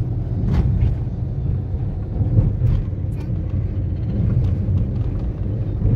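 Steady low rumble of a car in motion heard from inside the cabin: engine and tyre noise on the road, with a few faint ticks.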